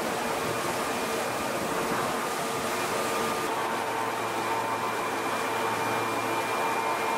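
Steady hum and hiss of the ventilation on an underground subway platform, with a few faint steady tones.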